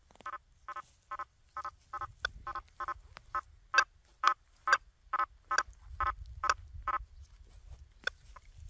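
Quest V80 metal detector giving a rapid run of short beeps, all at the same pitch, as the 9-inch coil is swept over a nailboard of iron nails and targets. The beeps come about three a second and stop about seven seconds in, with a few sharp clicks among them.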